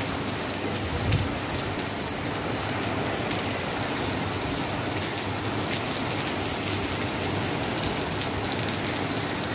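Heavy rain falling steadily, an even hiss of rain on surfaces with many scattered drop ticks.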